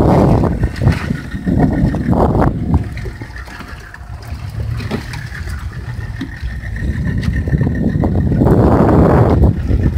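Wind buffeting the microphone over water sloshing around a small open fishing boat on a choppy sea, louder at the start and again from about two-thirds of the way in, with a faint steady high whine running under it.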